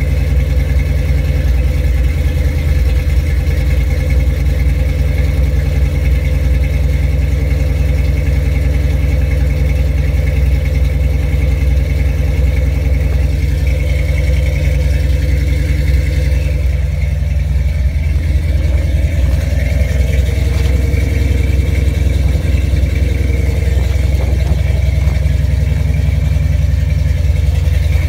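Ford F-100's big-block V8 idling steadily as it warms up after a cold start in 17-degree weather.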